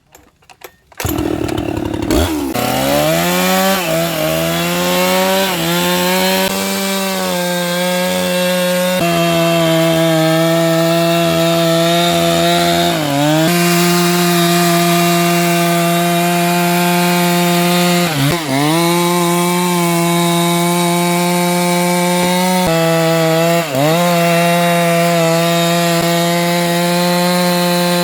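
Husqvarna 390 XP two-stroke chainsaw with a 36-inch bar cutting wood at high revs. The engine note dips briefly every few seconds as the chain bogs under the load.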